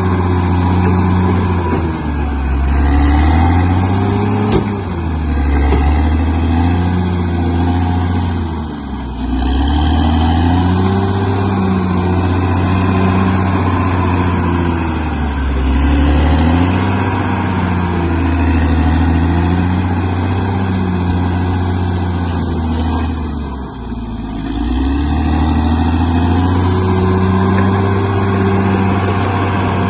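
Bulldozer diesel engine working hard, its engine speed rising and falling over and over as the machine pushes and backs off. It drops briefly at two points, about nine seconds in and again near the end.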